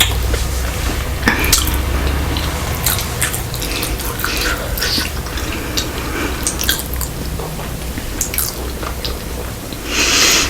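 Close-miked chewing of a cooked sushi roll, with irregular wet mouth clicks and smacks.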